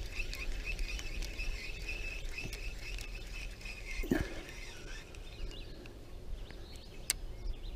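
Spinning reel being cranked on a retrieve, a steady high whir that stops about four seconds in, where a single swish comes as the rod is cast. A few light clicks follow.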